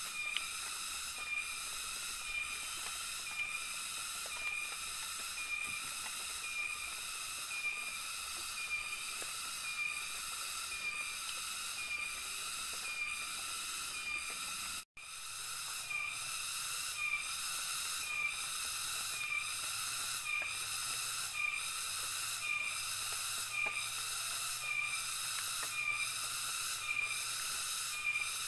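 Insect chorus in tropical forest, a steady high-pitched buzzing that pulses evenly about three times every two seconds. It cuts out for an instant about halfway through, then carries on the same.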